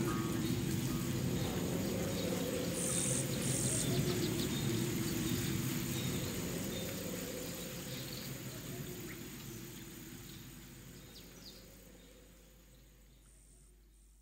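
Nature ambience of insects chirping and birds calling, with two short high chirps about three seconds in, fading out steadily over the second half to near silence.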